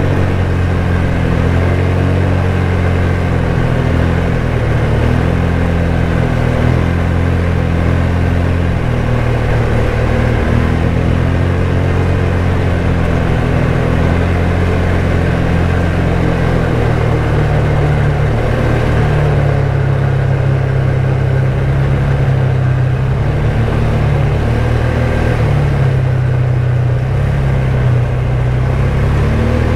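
ATV engine running steadily while riding along the trail, its note stepping up and down as the throttle and speed change.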